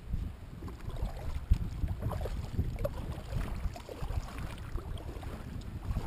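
Wind buffeting the microphone over water lapping around a kayak, an uneven low rumble with a few small knocks, the sharpest about a second and a half in.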